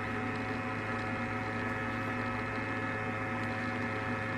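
MLAY radio-frequency skin-tightening machine switched on, giving off a steady electrical hum with several high steady tones above it.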